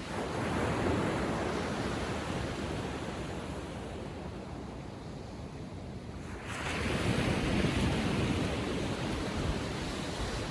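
Small ocean waves breaking and washing up on a sandy beach in a calm sea. One wave breaks about six and a half seconds in and is the loudest moment, then its wash slowly fades.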